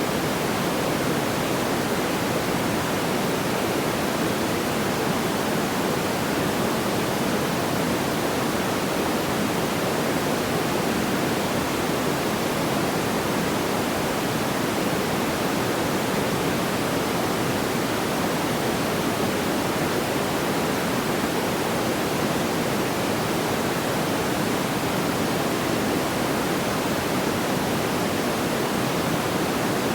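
Steady, even rushing noise, strongest in the low-middle range, with no distinct pops or crackles.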